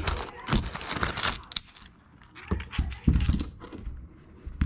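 Metal side plates and hardware from a Dexter EZ-Flex trailer suspension kit clinking and clanking against each other as they are handled and set down: a series of sharp metallic knocks with a bright ring, and a short lull about two seconds in.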